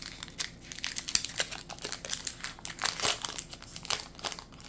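Foil Pokémon booster pack wrapper crinkling as it is handled and torn open: a dense, irregular run of crackles.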